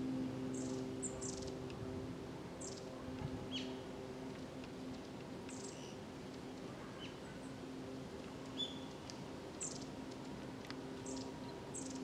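Long-tailed tits calling: about a dozen thin, short, high calls at irregular intervals, over a faint steady low hum.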